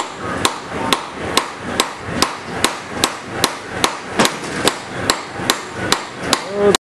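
Hammer blows on a drift held against the seized front sprocket nut of a 1998 Kawasaki ZX-9 Ninja, splitting the nut after it has been cut partway through. About sixteen steady strikes, two to three a second, the last one ringing briefly before the sound cuts off suddenly.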